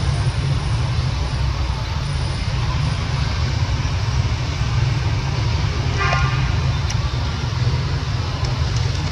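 Steady, loud outdoor rumble and hiss, with a brief high-pitched sound about six seconds in.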